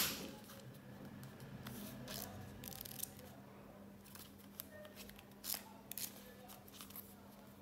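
Small plastic-covered pocket diary being handled: a sharp click at the start, then soft plastic rustling and a few light clicks and flicks as its pages are opened and leafed through.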